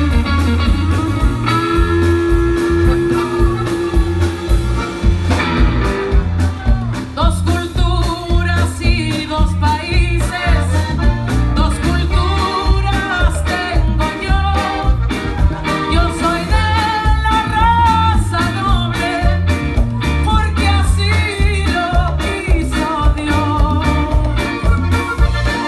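Live Latin band playing a song with electric guitar, accordion, congas and drum kit over a steady beat, and a woman singing lead; her melody takes over from about six seconds in.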